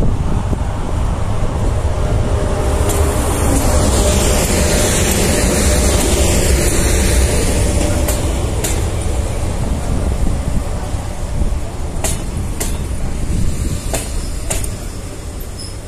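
EP1M electric locomotive and its passenger coaches rolling slowly past as the train arrives at the platform. A steady rumble of wheels on rail, with sharp paired clicks from the wheels in the second half, easing off a little toward the end.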